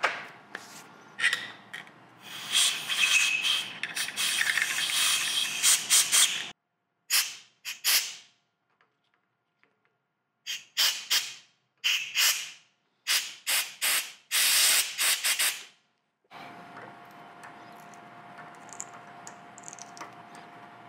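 Compressed-air blow gun with a needle tip blasting metal chips out of a freshly drilled, counter-drilled hole. It gives a long hissing stretch, then a series of short blasts with gaps between them.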